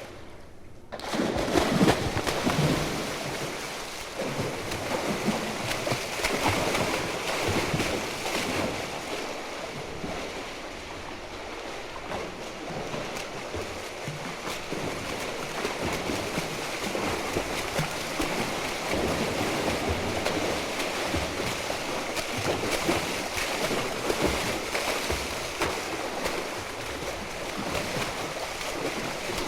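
After a brief gap, a steady rushing water noise begins about a second in, like waves at sea, rising and falling irregularly.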